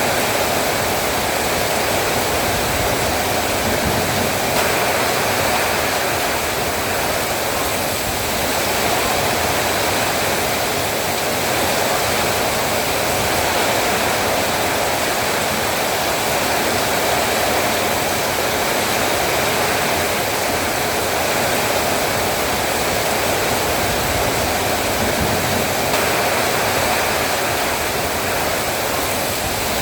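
Heavy rain pouring down steadily, an even, unbroken hiss of downpour.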